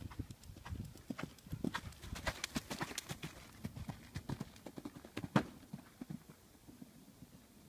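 Hoofbeats of a pony ridden over a sand arena surface, a run of soft irregular thuds with one louder thud about five seconds in, as it reaches and takes off at a show jump.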